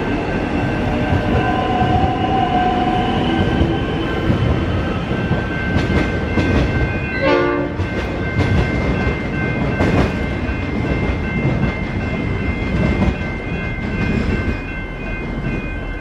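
Electric suburban passenger train (High Capacity Metro Train) pulling out and running away over the track, with wheel-on-rail rumble and clatter and a high traction-motor whine that rises over the first few seconds. From about six seconds in, thin steady high ringing tones sound over the fading rumble.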